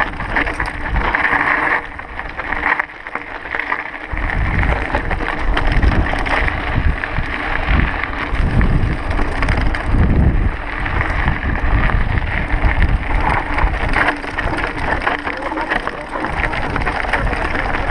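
Mountain bike riding a rocky dirt trail: wind rushing over the microphone, with tyres and frame rattling over loose stones. The sound dips briefly about two seconds in.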